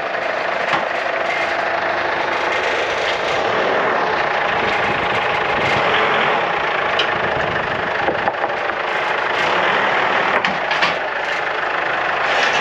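Ford Ranger pickup's engine running steadily, a dense mechanical noise with a few sharp knocks scattered through.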